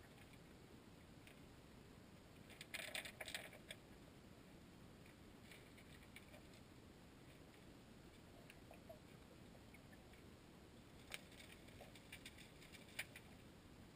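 Faint, muffled underwater creek noise, close to silence, broken by scattered light clicks and ticks: a quick cluster about three seconds in and a few single ticks near the end.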